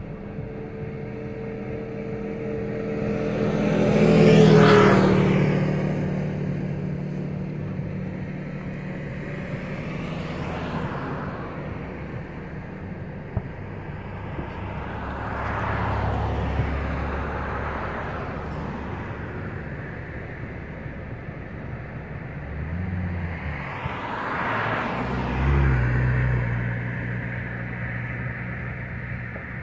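Road vehicles passing one after another, each a swell of engine and tyre noise that rises and fades over a few seconds, the loudest about four seconds in. A few faint sharp pops come in between.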